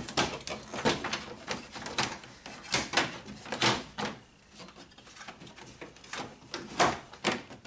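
Hard plastic radiator cover being worked loose from a Honda Civic's front end, scraping and catching against the car's body and trim. An irregular string of plastic clicks and knocks, with louder clunks about midway and near the end.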